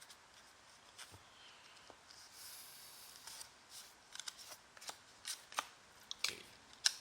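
Basketball trading cards being handled and flipped through: faint scattered clicks and soft rustles, with a short rustle about two and a half seconds in.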